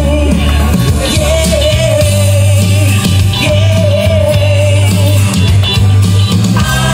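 Music with singing over a heavy bass line; a long wavering melody line is held in phrases, and a new chord comes in near the end.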